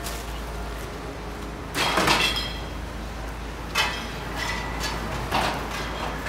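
Outdoor street ambience with a steady low hum and a few short clinks and knocks, the loudest about two seconds in and others near four and five seconds.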